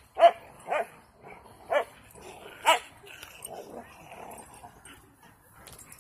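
A small dog barking four times in sharp single barks over the first three seconds.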